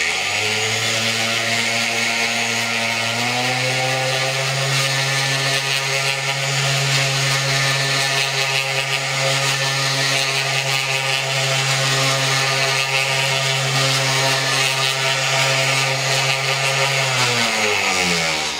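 DeWalt random orbit sander sanding an oil-paint base coat through a mesh sanding screen. The motor switches on and climbs to speed over the first few seconds, runs steadily under a scratchy sanding hiss, then winds down with a falling pitch near the end.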